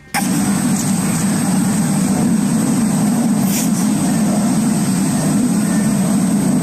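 Loud steady low rumble with a thin constant high whine over it, cutting in abruptly at the start. There is a short hiss about three and a half seconds in.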